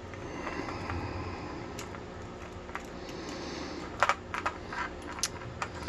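Light clicks and taps of small metal lock parts being handled while a padlock core is repinned, with a quick cluster of sharper clicks about four seconds in.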